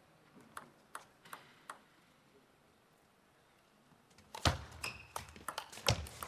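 Table tennis ball bounced four times in quick succession before a serve, then after a pause the serve and a fast rally: a quick run of sharp ball clicks off rackets and table starting about four seconds in.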